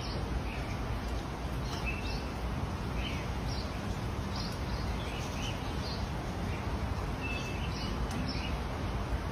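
Small birds chirping: short, high chirps, roughly one or two a second, over a steady background hiss.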